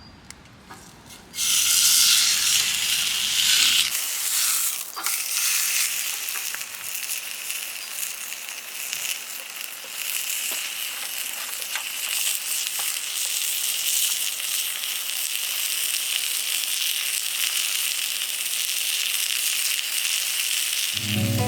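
Food sizzling and frying in a hot pan, starting suddenly about a second and a half in as it hits the pan, then a steady loud sizzle with small pops.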